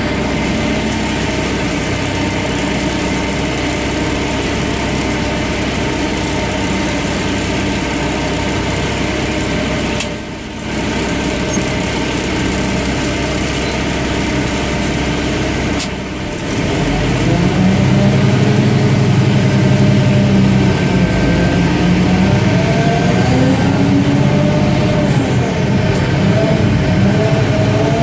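Mack DM690 concrete mixer truck's diesel engine running steadily, with two brief drops about ten and sixteen seconds in. Then it grows louder, with its pitch slowly rising.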